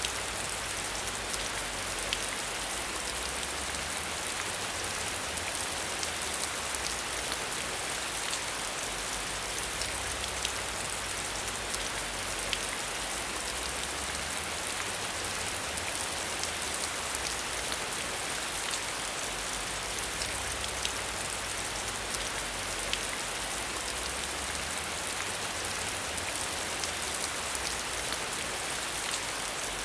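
Steady rain falling, with many small, sharp drop hits ticking through an even hiss.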